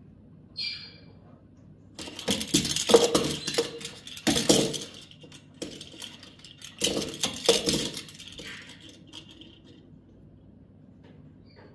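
African grey parrot working a small plastic toy ball with its beak, the ball rattling and jingling in two bouts of quick clattering. A short high squeak comes just after the start and again near the end.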